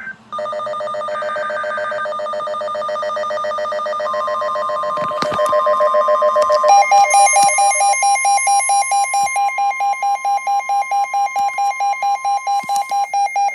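Weather radio alert sounding ahead of a new warning, made of electronic alarm tones. Buzzing alarm tones are joined about four seconds in by a steady attention tone that holds until near the end. About seven seconds in, the alarm changes pitch and pulses about four times a second.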